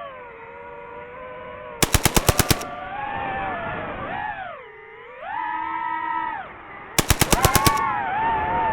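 Two short bursts of machine-gun fire, each about eight rapid shots, about five seconds apart; these are dubbed-in sound effects. Under them a whining motor tone with harmonics rises and falls in pitch.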